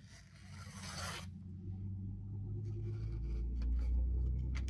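Knife blade shaving a thin curl, a soft scraping hiss in about the first second. After it comes a low rumble that swells toward the end, louder than the shaving.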